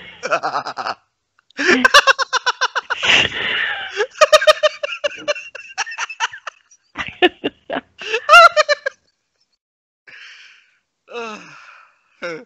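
People laughing, with gasps and a few unclear words mixed in; the laughter dies down to a few quieter sounds in the last few seconds.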